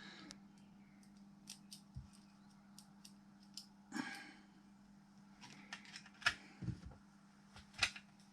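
Irregular clicks and taps of small plastic and metal parts being handled while a car radio head unit is put back together and its front screws are readied, over a faint steady hum.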